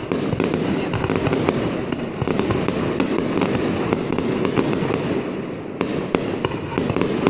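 Fireworks display going off: a dense, continuous barrage of crackling and popping with many sharp bangs scattered through it.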